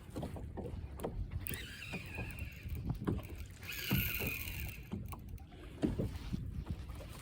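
Irregular low knocks and handling thumps, as on a small boat, with two short rushes of splashing hiss about two and four seconds in.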